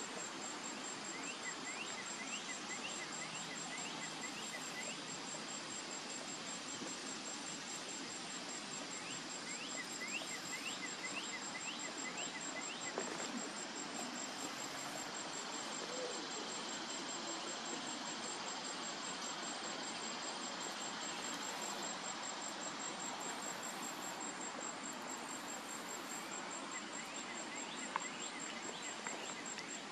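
Steady high-pitched insect trill, a rapid even pulsing, over a constant outdoor hiss. Two short runs of quick rising chirps come in the first few seconds and again about ten seconds in, and a single soft tick sounds near the end.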